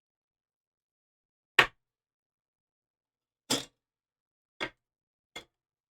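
Four short sharp clicks or taps from trading cards being handled, set down or flicked while going through a pack, the first the loudest and the rest fainter, with dead silence between them.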